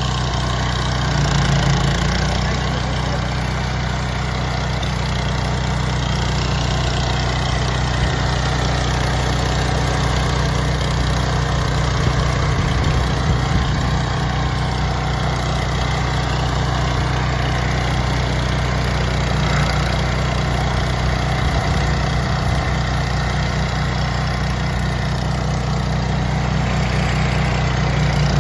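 Engine of an OREC HRC805 walk-behind mower running steadily at a constant speed.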